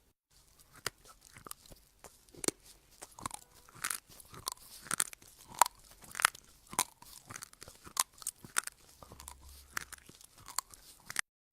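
A person chewing crunchy food: a steady run of sharp, crisp crunches, roughly three every two seconds, that stops suddenly near the end.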